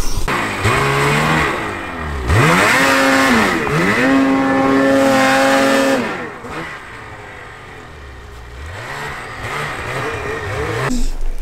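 Snowmobile engine revving hard: the pitch climbs and holds high, dips briefly and climbs again, then falls away about six seconds in. It picks back up with wavering revs near the end.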